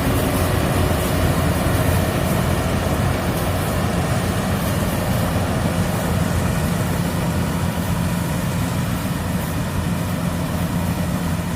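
Yanmar AW70 combine harvester running steadily while harvesting rice, its engine drone mixed with the clatter of the threshing machinery, growing slightly fainter toward the end.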